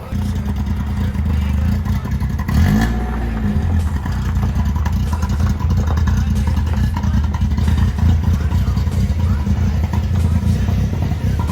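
Car engine running under way, a steady low rumble, with a brief rise and fall in pitch about two and a half seconds in.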